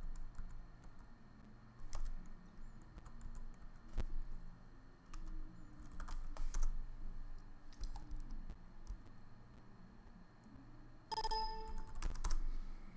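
Computer keyboard typing in scattered keystrokes. Near the end, a brief electronic ringing tone of about a second sounds over it.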